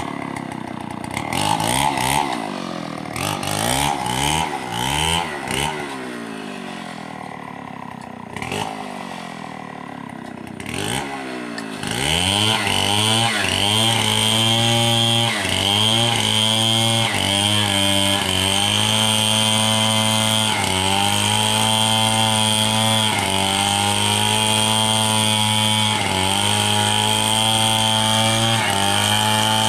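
Two-stroke chainsaw cutting a squared log lengthwise into lumber. For the first dozen seconds its revs rise and fall unevenly. About twelve seconds in it settles into a steady full-throttle run, its pitch dipping briefly every second or two.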